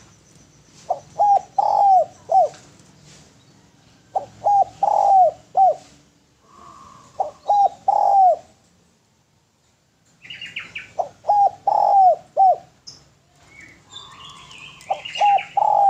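Spotted dove cooing: a phrase of three or four low, rounded coos, repeated every three to four seconds, five phrases in all. Some higher-pitched chirps come in about ten seconds in and again near the end.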